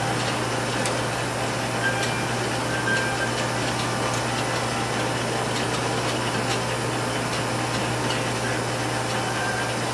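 Hilliard's chocolate enrober running: a steady motor hum under a constant rushing noise as the machine circulates chocolate over the moving conveyor, with a few faint ticks.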